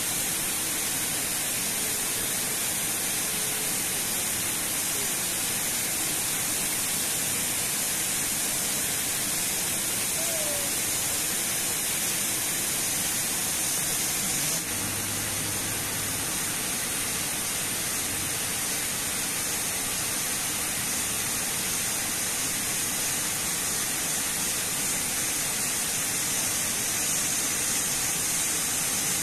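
Water pouring down a concrete weir into a churning pool: a steady, unbroken rush with a strong hiss.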